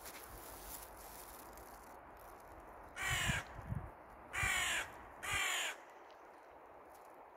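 A crow caws three times, harsh and loud, a little over a second apart.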